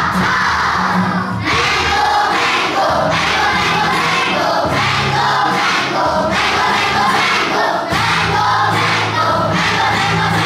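A large group of children singing one word over and over together in a steady rhythm, with music underneath.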